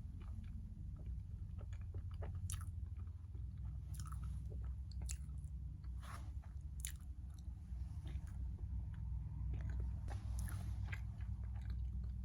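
Someone chewing and biting a chocolate mochi roll cake, with irregular small wet mouth clicks, over a steady low hum.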